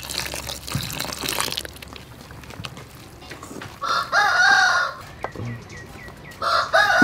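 A rooster crows twice, about four seconds in and again near the end, each crow about a second long and the loudest sound. Early on a wooden spoon scrapes and stirs thick batter in a steel bowl.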